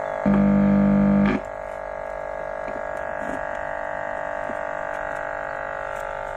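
Loudspeakers of a hand-built miniature sound system giving off a steady, many-toned electrical hum, likened to a purring cat, with a louder, deeper buzz for about a second near the start as the input cables are handled. The hum is the sign of a fault in the home-made amplifier or its wiring.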